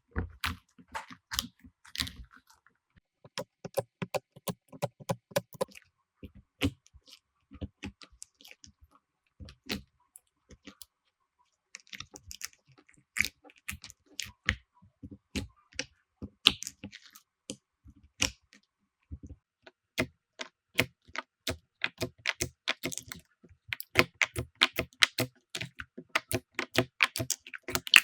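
Slime being pressed, poked and squeezed by hand, giving quick irregular clicks and small pops, sparser in the middle and denser near the end.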